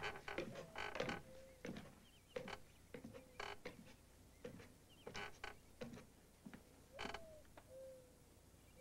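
Wooden staircase creaking and knocking under slow footsteps: a dozen or so irregular squeaky creaks, fewer toward the end.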